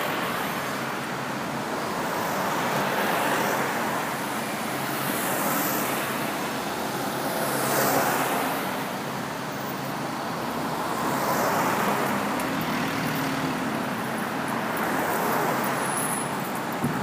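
Road traffic noise, cars passing one after another and swelling and fading every few seconds.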